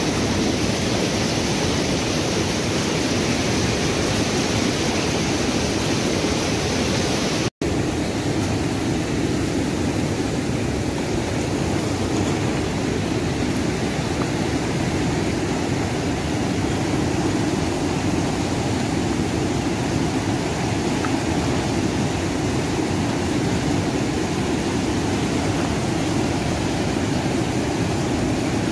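Fast mountain river rushing over rocks in white-water rapids, a steady, loud noise of water. It cuts out for an instant about seven and a half seconds in, then carries on.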